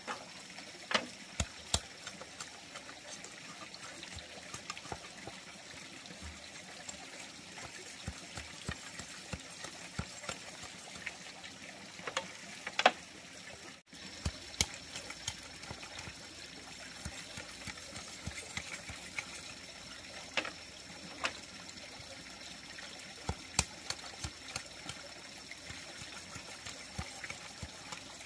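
A large knife splitting and shaving an upright bamboo pole into strips: scattered sharp cracks and knocks, irregular, over a steady background hiss.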